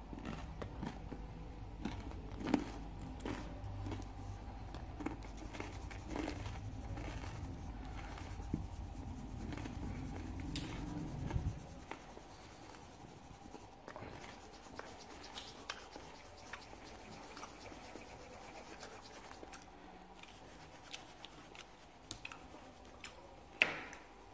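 Pencil scratching and rubbing on paper in short strokes, with light ticks as it moves across the sheet. A low background rumble stops suddenly about halfway through, and a sharp tap sounds near the end.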